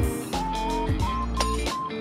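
Background music: an upbeat instrumental with guitar, a steady beat and a bass line under a held melody.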